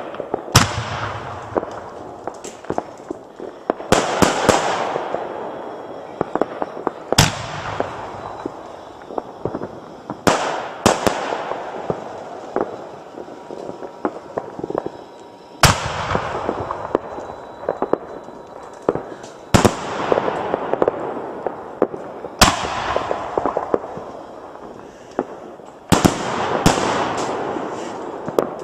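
Consumer aerial fireworks bursting one after another, a sharp bang every few seconds, about a dozen in all. Several bursts are followed by a second or two of crackling as the stars spread.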